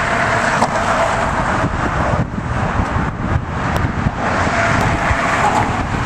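Steady traffic noise from cars on a bridge roadway, a continuous rumble and hiss with no single event standing out.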